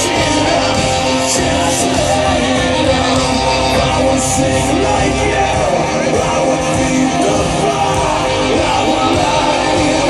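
Hard rock band playing live through a festival PA, loud and steady, with distorted electric guitars and drums.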